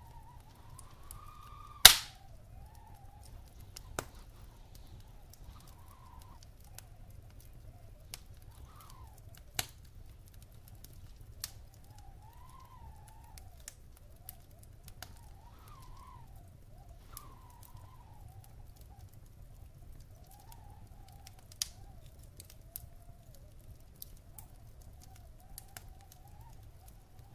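Wood fire burning in a fireplace, crackling with scattered pops, the loudest a sharp pop about two seconds in. Under it runs a faint whistle that wavers up and down in pitch.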